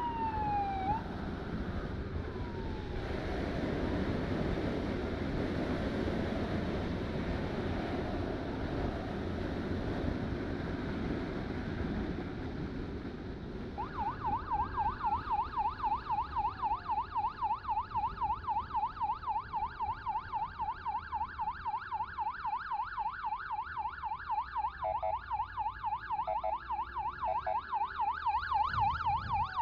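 A motorcycle's electronic siren. It starts with a wail falling in pitch that ends about a second in, then gives way to wind and road noise while riding. At about 14 s it switches to a fast, steady yelp that rises and falls several times a second, with a few short breaks a little over ten seconds later.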